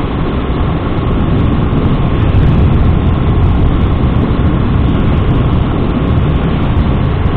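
Steady, loud wind rushing over a helmet-mounted microphone on a moving motorcycle, with the Sinnis Max 2's engine and aftermarket exhaust running beneath it.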